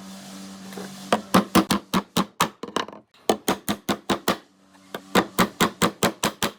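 Quick runs of sharp hammer blows on wood, about four to five a second, broken by two short pauses. A low steady hum sits under the first second, before the blows start.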